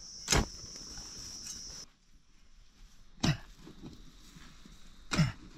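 A steady, high insect trill that cuts off about two seconds in, with three short, sudden sounds, each dropping in pitch, spaced about two seconds apart.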